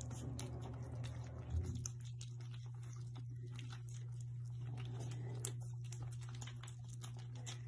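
Kittens eating wet cat food: many quick small clicks of chewing and lapping, over a steady low hum.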